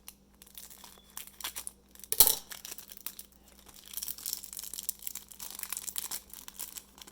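Trading card pack wrapper being handled and torn open: crinkling and tearing, with one sharp snap about two seconds in.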